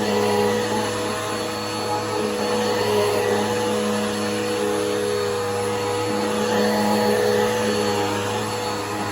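Bissell PowerForce Helix upright vacuum cleaner running steadily while vacuuming a couch, its motor tone shifting slightly a couple of times as the suction is worked over the fabric.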